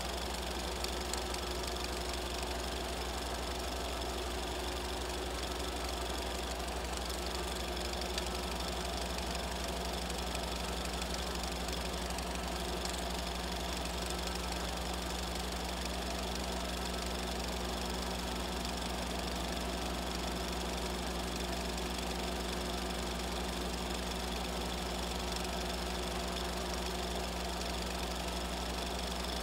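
Film projector running steadily, with an even whirr and a fast clatter from the film-advance mechanism.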